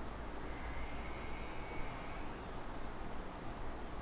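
Faint background noise with a low hum and hiss, and a short high-pitched chirping trill of about six quick pulses that recurs roughly every two seconds.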